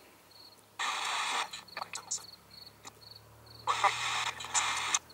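Spirit-box app on a handheld phone, sweeping radio and giving three short bursts of static about a second in and near the end, one carrying a brief voice-like fragment, heard as answers to a question put to a spirit.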